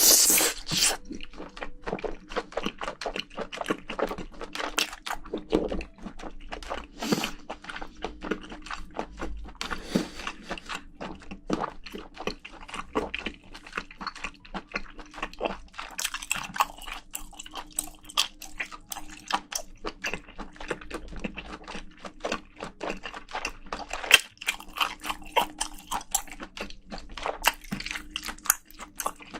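Close-miked eating of spicy braised seafood: wet chewing with many crisp crunches and mouth clicks, opening with a loud crackling burst.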